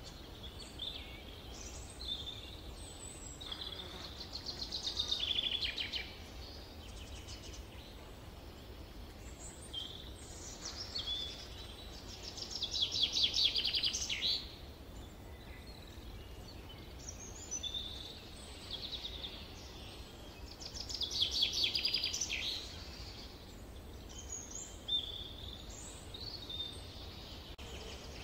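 Summer forest ambience: a songbird sings a trilled phrase of rapid notes about two seconds long, three times roughly eight seconds apart, with shorter calls of other birds in between. A low steady rumble lies underneath.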